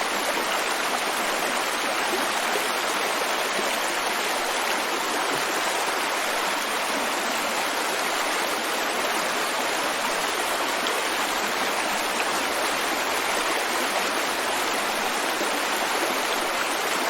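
Babbling brook: water running and splashing over rocks in a steady, even rush.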